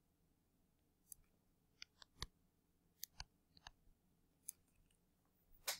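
Faint, scattered taps and clicks of a stylus on a writing tablet as words are handwritten, about ten in all, the loudest a little past two seconds in.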